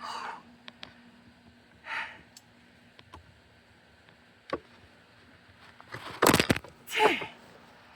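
Hand-handling noises of wire being worked through a homemade splitting block: a few scattered light clicks and breaths, then a short burst of clattering and scraping about six seconds in, followed by a brief grunt.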